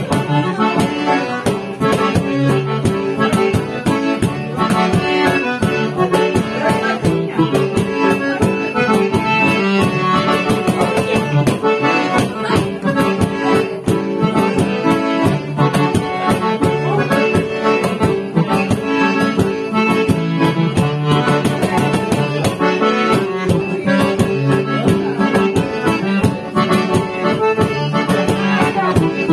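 Accordion playing a lively traditional tune, with a steady percussion beat underneath.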